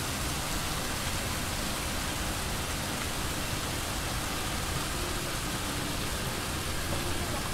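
Steady rain falling on pavement, an even hiss that holds at one level throughout.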